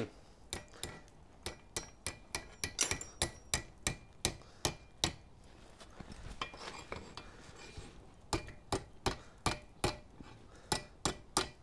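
Hand hammer striking a small red-hot 6 mm round steel bar held in tongs on the anvil, bending it. Sharp metallic blows come about three a second, stop for about three seconds in the middle, then start again.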